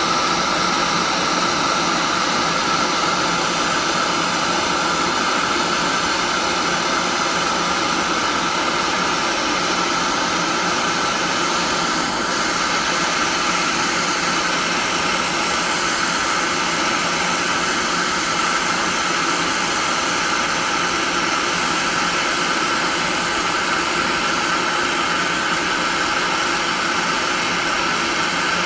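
Small handheld gas torch burning with a steady hiss, heating a seized distributor in an engine block.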